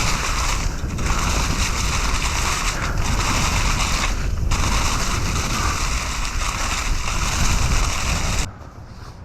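Mountain bike riding on a dirt trail: wind rushing over the camera microphone mixed with tires rolling over dirt and leaves, dropping away suddenly near the end as the bike comes to a stop.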